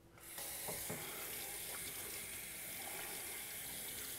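Kitchen sink faucet turned on and running steadily, drawing water to use as stewing fluid.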